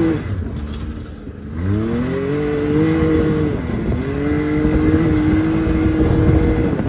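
Can-Am Maverick X3 side-by-side engine accelerating: the revs fall away just after the start, climb again about a second and a half in, dip briefly, then hold at a steady pitch as it drives on, easing off near the end.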